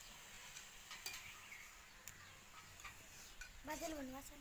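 Faint scraping and clicking of a metal spatula stirring food in a black cooking pan, with a short voice-like call near the end.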